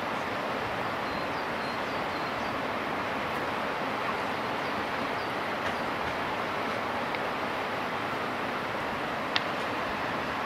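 Steady, even rushing noise, with a few faint high chirps about a second in and a single sharp click near the end.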